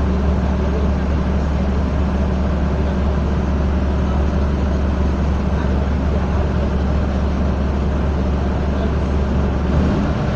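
Mercedes-Benz OF-1722M city bus's diesel engine running with a steady low drone, heard from inside the passenger cabin along with rattles and road noise.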